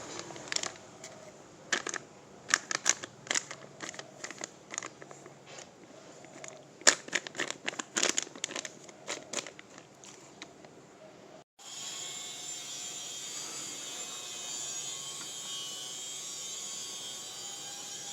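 Kitchen handling sounds: irregular crinkling and sharp clicks for about eleven seconds, then, after a sudden cut, a steady hiss.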